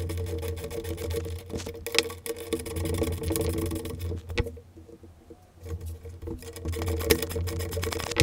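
A small motor-driven tool running with a steady hum and a rapid rattle, stopping for about a second midway and then running again, with sharp metallic clicks over it.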